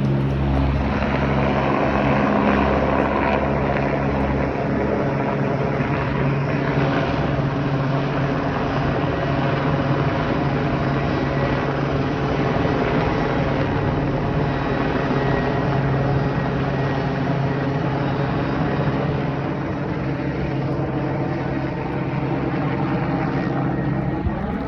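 Helicopter running at a steady pitch: a loud, continuous engine and rotor drone with a constant hum.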